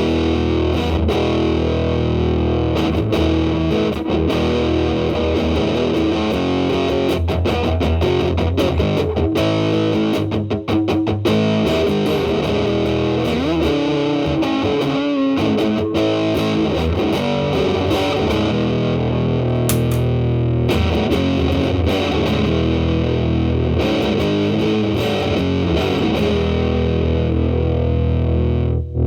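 Electric guitar, a Telecaster with single-coil pickups, played through a Big Muff Pi fuzz pedal with the sustain set high, around 10 to 11, into a Marshall Valvestate amp's clean channel: thick, heavily distorted held notes that change from one to the next, with a brief break near the end.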